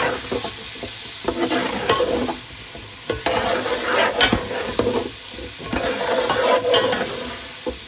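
Long steel spoon stirring and scraping potato cubes and minced meat around an aluminium pot, with irregular clinks and scrapes against the pot. Under it, steady sizzling of the meat frying in its separated oil.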